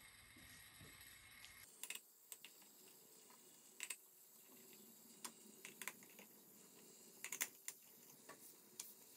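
Light metal clicks and taps of brass clock parts being handled and seated as pillars are fitted onto a brass drum-shaped clock case, about ten scattered, irregular clicks, some in quick pairs, over faint room tone.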